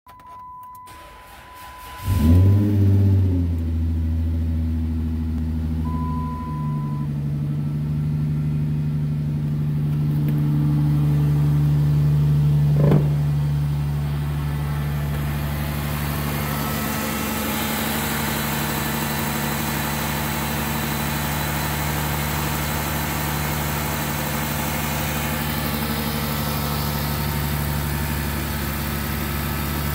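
A 2010 Dodge Charger's 3.5-litre V6 starts about two seconds in, flaring up in revs as it catches, then settles into a steady idle. A steady dashboard beep sounds just before the start and once more a few seconds after.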